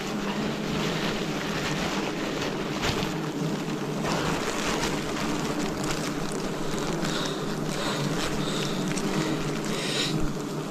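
A swarm of wild giant honeybees humming: a steady, low drone of many wingbeats, with scattered faint crackles and clicks.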